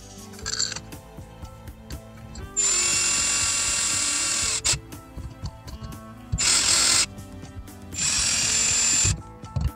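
Ryobi cordless drill/driver running in three bursts, a long one of about two seconds and then two shorter ones, as it drives in the screws of a shower faucet's cover plate.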